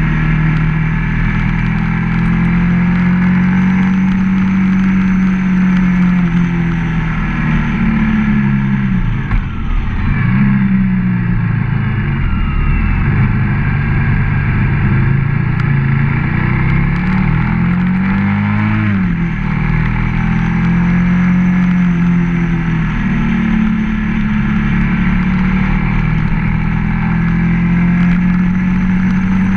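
Ducati ST3s motorcycle's L-twin engine under way at steady revs, its pitch dropping and climbing back twice as the bike slows for bends and accelerates out.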